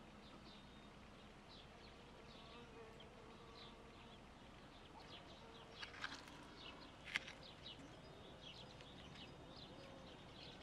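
Faint ambience of small birds chirping over and over and an insect buzzing with a wavering hum. A few light clicks about six and seven seconds in, the loudest near seven seconds, as a metal fork picks into the salad on the plate.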